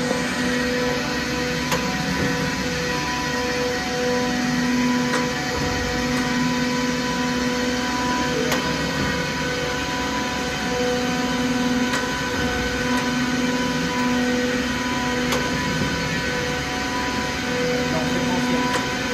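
Camut Maxi 825 surface grinder running: a steady machine hum from the wheel head and table drive as the table travels back and forth under the grinding wheel, the hum dipping briefly every few seconds, with a few light clicks.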